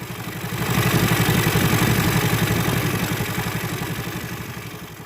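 Engine idling with a fast, even beat, swelling up about half a second in and then slowly fading away toward the end.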